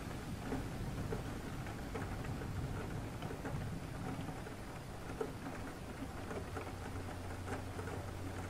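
Steady rain falling, with many small drops pattering and ticking scattered through it.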